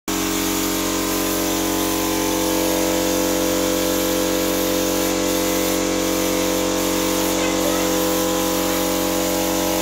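Air compressor running steadily to feed a spray gun for PU polish: a constant hum of several steady tones with an even hiss of air over it.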